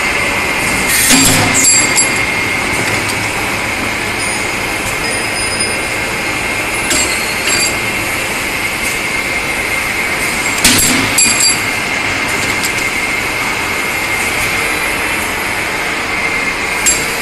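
Automatic steel tube cutting and chamfering machine running with a steady high whine, and sharp metal clanks of the steel tubes every few seconds, about a second in, near 7 and 11 seconds, and near the end.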